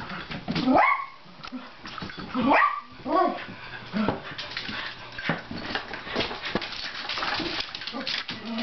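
Dog barking and yipping while chasing a laser-pointer dot, with two loud calls about a second in and around two and a half seconds in. Quick taps and scrabbling of its paws on the floor run through.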